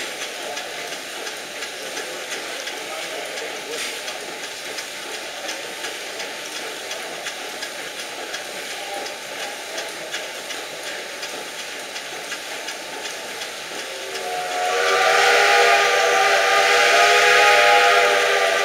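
Small horizontal stationary steam engine running with a steady hiss and faint regular beats. About fourteen seconds in, a steam whistle blows loudly for several seconds, sounding several tones at once.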